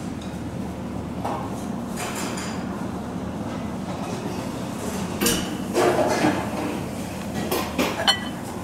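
Restaurant kitchen background: a steady low hum, like a ventilation fan, with dishes and utensils clinking a few times in the second half.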